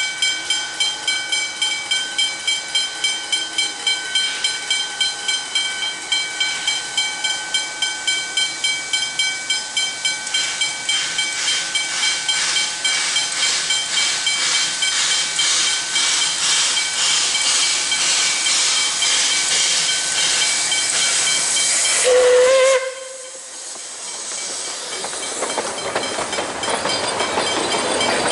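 Puffing Billy narrow-gauge steam locomotive working, its exhaust beats about three a second at first, then quickening and blurring together as the train gathers speed. Over 20 seconds in there is a short loud burst, the sound drops suddenly, and then a hiss of steam and train noise builds up.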